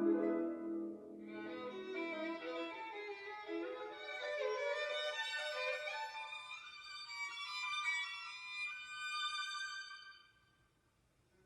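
Violin playing a waltz melody that climbs from low notes into a high register and then dies away about ten seconds in.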